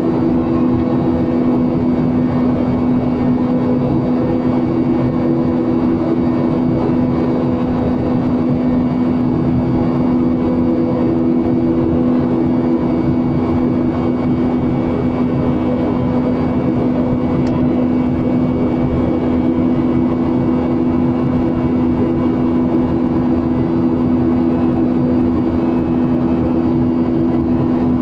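Steady drone of an airliner's engines and rushing air heard inside the passenger cabin in flight, with a constant low hum over the noise.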